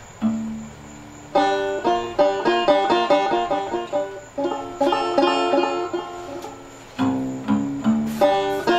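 Banjo picking a fast choro melody in quick runs of notes, over acoustic guitar accompaniment. The melody drops out briefly near the start and again about seven seconds in, leaving lower guitar notes.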